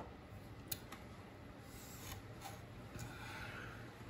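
Faint eating sounds: a few small clicks, then a softer, longer chewing noise about three seconds in.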